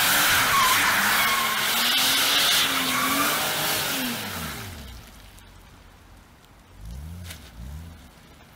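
BMW Z3 roadster drifting: tyres squealing loudly over the engine revving up and down. After about four and a half seconds it goes much quieter, and the engine revs twice more, briefly.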